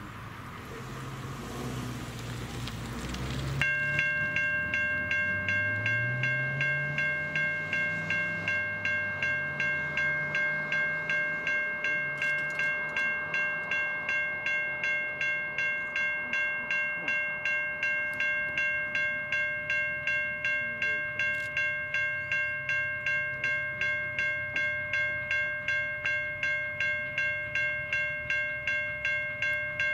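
Level-crossing warning bell that starts suddenly about four seconds in and rings on evenly at about two to three strokes a second, the sign of an approaching train. Before it there is a steady hiss, and a faint low rumble runs underneath.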